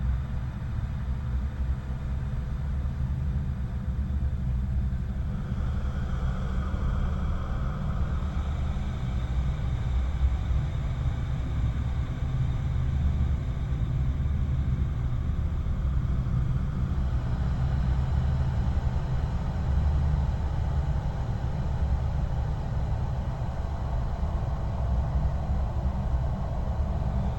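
Dark horror ambience: a deep, steady low rumble, with a faint higher hum swelling in about five seconds in and again from about two-thirds of the way through.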